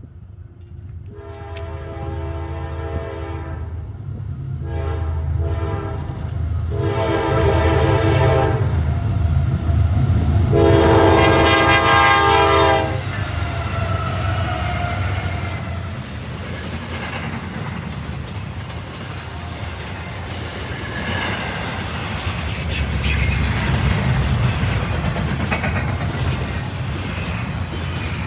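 Norfolk Southern freight train led by four diesel locomotives. The horn sounds four blasts over the low rumble of the engines, the last the loudest; then the train rolls past with a steady rattle and clatter of wheels on the rails.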